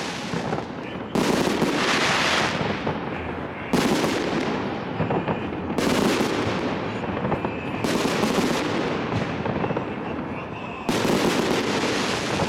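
A fireworks salute: volleys of aerial shells bursting, five sharp bangs roughly every two seconds. Each bang is followed by a noisy tail that fades over a second or two.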